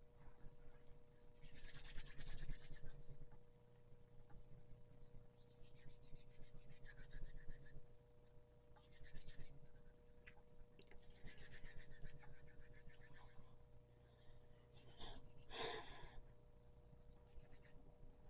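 A faint rubbing, scraping noise in about five separate strokes, each a second or two long, with pauses between. A faint steady hum runs underneath.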